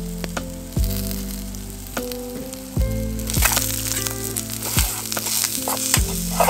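Mushrooms and garlic cloves sizzling in oil in a frying pan over a campfire, the sizzle growing louder about three and a half seconds in as they are stirred and turned with tongs. Background music with slow, evenly spaced notes plays throughout.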